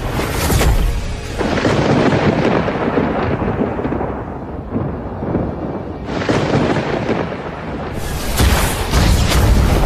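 Deep rolling thunder mixed with a dramatic film score. Sharp cracks come near the start, the rumble thins out in the middle, and heavy strikes return from about eight seconds in.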